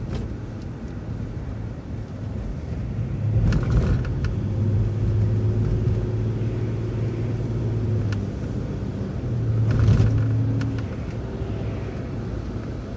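City transit bus driving along a road: engine and road noise, with a low hum that swells about three seconds in and again near ten seconds, and a few brief rattles.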